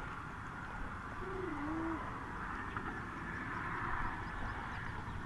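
A dove cooing once, a short low call that dips in pitch and rises again about a second in, over a steady low rumble.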